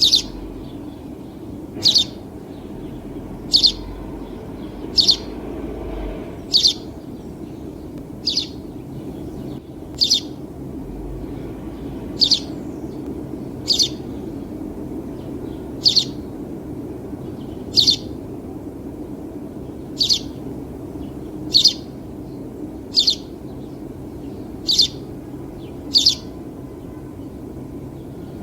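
House sparrow giving single short cheeping chirps, one every one and a half to two seconds, over a steady low background hum.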